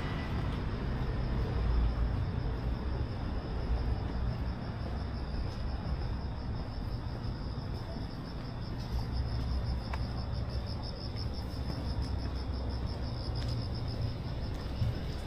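Crickets chirping in a steady, rapidly pulsing high trill, over a low traffic rumble.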